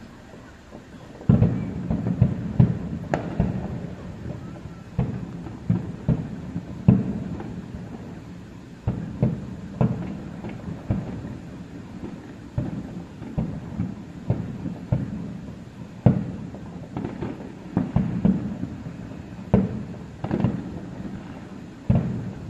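Aerial firework shells bursting in a rapid, irregular series of deep booms, several a second at times, starting about a second in.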